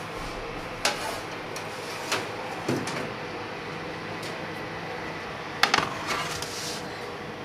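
Metal baking tray being drawn out of an electric oven and set down on a kitchen worktop: a few sharp knocks and clatters, the loudest a quick double knock about five and a half seconds in as the tray lands.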